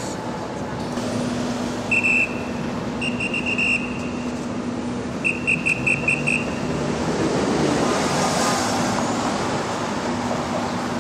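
City street traffic with a steady low engine hum. A vehicle passing swells the noise about eight seconds in. Several quick runs of short, high-pitched beeps or chirps sound in the first half.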